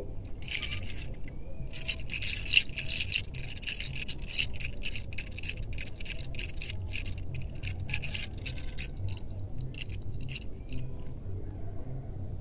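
A hand rattle shaken in quick short strokes, a dry rattling at about four to six shakes a second. It starts about half a second in, pauses briefly, then goes on until shortly before the end, thinning out over the last couple of seconds.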